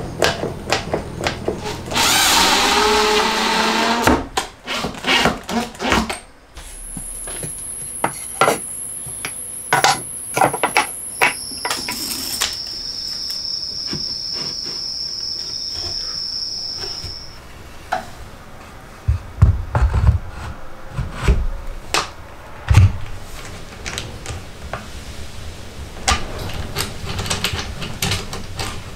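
Workshop assembly sounds: a long string of clicks and knocks from bar clamps being set on a plywood box and plywood parts being fitted together. There is a steady stretch of noise lasting about two seconds near the start, and heavier thumps around twenty seconds in.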